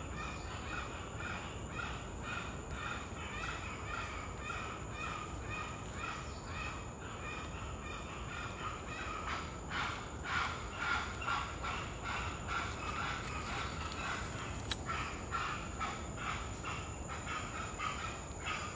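Several Geoffroy's spider monkeys giving short alarm calls over and over, several a second, growing louder about ten seconds in: the alarm they raise at a puma.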